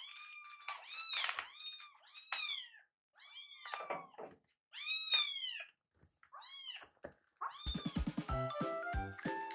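Two kittens meowing insistently, about eight high arching meows in quick succession, some overlapping, while they beg for food. Background music with a steady beat starts near the end.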